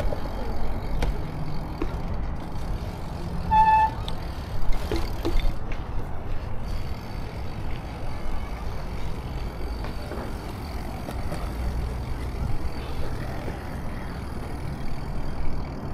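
Steady low rumble of wind and rolling tyres on a chest-mounted camera's microphone while a Redline BMX bike is ridden, with one short squeal about three and a half seconds in.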